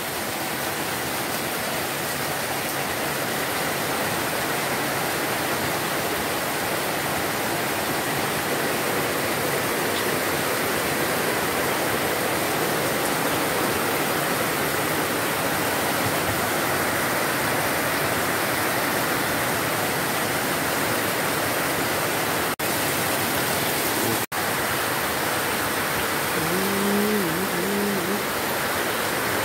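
Heavy tropical downpour: a steady, dense hiss of rain falling on the ground, the standing floodwater and the roofs. The hiss cuts out for an instant twice, about three-quarters of the way through.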